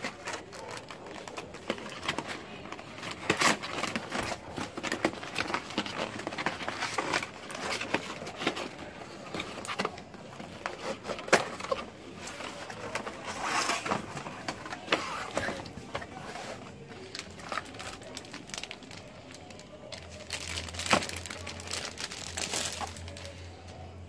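Cardboard packaging and plastic film rustling and crinkling as a wireless keyboard is unboxed, with irregular small knocks and scrapes of the box being handled.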